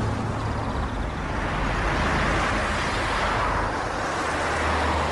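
Ford van driving along a road: steady engine hum and tyre noise, swelling about two seconds in as it comes closer.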